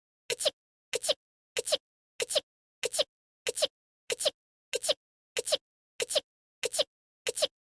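A woman's voice-acted anime sneeze, looped: the same short two-part sneeze repeats about twelve times, roughly one every 0.6 seconds, with silence between each.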